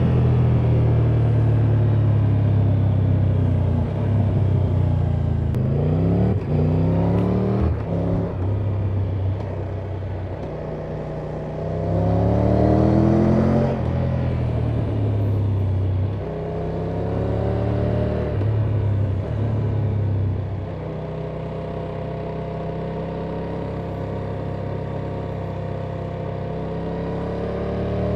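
Triumph Tiger 1200's inline three-cylinder engine through its stock exhaust, heard from the saddle while riding. The revs climb in rising pulls, about six and twelve seconds in and again briefly near eighteen seconds, drop back, settle to a steady cruise, then start climbing again near the end.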